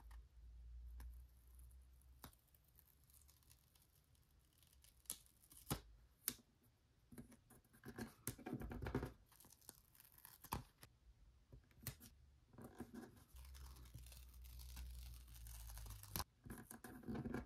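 Faint paper stickers being peeled off their backing sheet and pressed down onto a cardboard board: scattered light taps and paper crackles, with a couple of longer peeling rasps.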